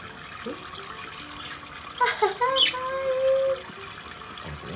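Pet budgerigars chirping about two seconds in: a falling note, a quick chirp that rises steeply, and a held steady note lasting about a second. Under them runs a faint trickle of water flicked by hand.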